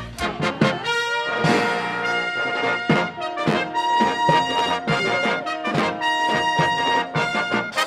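Upbeat music led by brass instruments, trumpet and trombone, playing over a regular beat.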